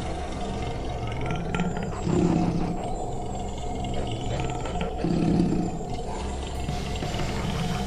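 Lion roaring: two low roars about three seconds apart, over a steady background.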